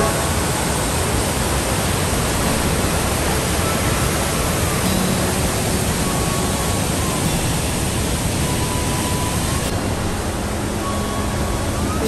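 Waterfall rushing: a steady, loud wash of white water pouring over the falls.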